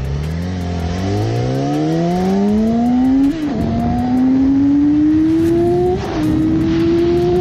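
Sport motorcycle engine accelerating hard through the gears, its pitch climbing steadily. About three seconds in and again about six seconds in the pitch drops briefly at an upshift, then keeps rising.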